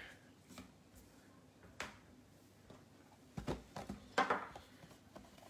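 A few soft knocks and rustles of a cardboard trading-card blaster box being picked up and handled on a wooden table: a sharp click, then a low knock and a short cluster of handling noises near the end.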